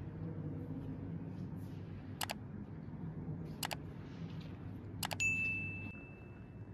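Subscribe-button animation sound effect: mouse clicks twice, a quick cluster of clicks, then a bright bell ding that rings out for about a second and a half. A steady low hum sits underneath.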